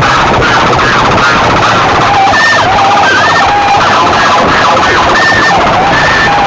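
Siren-style sound effect blasted through large DJ loudspeaker stacks, loud and distorted. A fast warble first, then from about two seconds in a high and a low tone alternate, hee-haw fashion.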